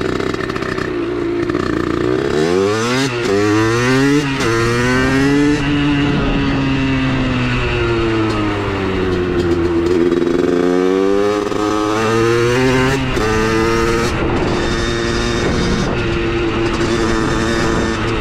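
Small two-stroke motorcycle engine, a 70cc-kitted Minarelli AM6 breathing through a Giannelli expansion pipe, pulling away with a few quick rising revs through the gears. It then falls off as it slows, picks up again and holds a steadier note.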